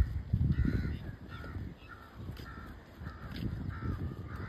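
Crows cawing over and over, short calls about two a second, over a low rumble.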